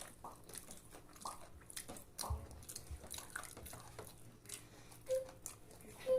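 Close-up chewing and wet mouth smacks of someone eating, with scattered small clicks and a soft low thump a little over two seconds in.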